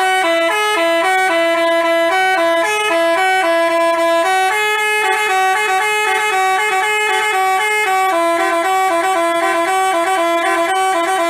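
Basuri telolet musical bus horn playing a fast tune of short notes stepping up and down, loud and unbroken.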